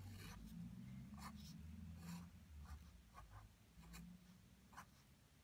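Faber-Castell Ecco Pigment 0.7 fibre-tip pen drawing a series of short strokes on sketchbook paper, faint.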